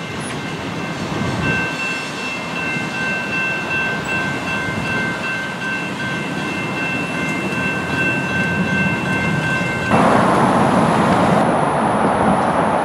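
Railroad grade-crossing warning bell ringing steadily as the crossing gates lift, over a low rumble. About ten seconds in, it cuts abruptly to a louder steady rushing noise with a thin high whine.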